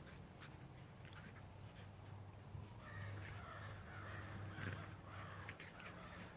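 A run of harsh, raspy animal calls, several in quick succession, starting about halfway through, over scattered soft ticks and scuffs.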